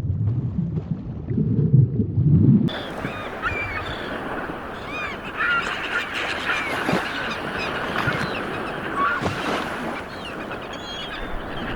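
A low rumble of wind or surf, then, after an abrupt cut between two and three seconds in, a chorus of many birds chirping and calling over a steady hiss.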